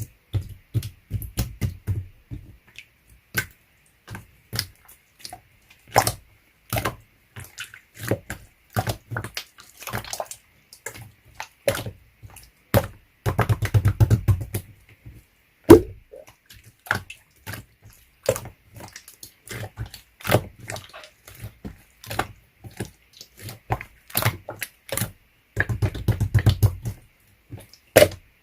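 Slime being squished, poked and pressed by hand: a steady string of sharp wet clicks and pops, with three longer spells of heavier squishing near the start, about halfway through and near the end.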